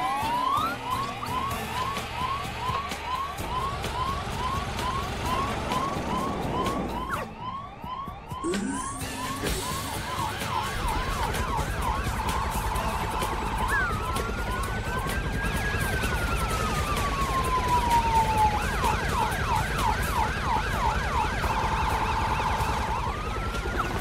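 Cartoon emergency-vehicle sirens: fast rising whoops about two a second, then a held note, a long wail rising and falling, and quick yelps again. A steady low drone sits underneath from about ten seconds in.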